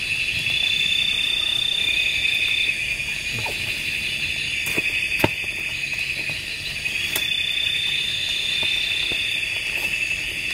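Night insects keep up a steady, shrill chorus of high trilling, with a second high call swelling and fading twice. A few sharp clicks come from the tent being handled, the loudest about halfway through.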